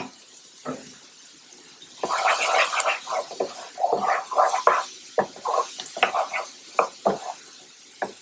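Wooden spoon stirring and scraping diced onions and bell peppers around a nonstick skillet, in quick irregular strokes starting about two seconds in.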